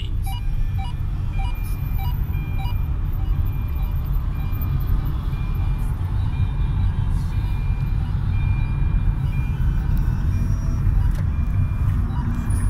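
Car cabin noise while driving: a steady low engine and road rumble, with a thin high beep repeating on and off.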